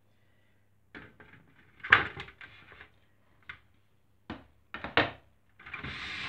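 Hard plastic trays of a Masteritsa electric fruit dehydrator knocking and clattering as they are set onto its base, with a sharp clack about two seconds in, several more knocks, and a longer rustling noise near the end.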